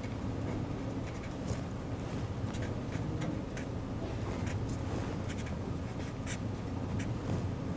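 Pen writing on paper: a run of short, irregular scratches and taps as the strokes are made, over a steady low hum.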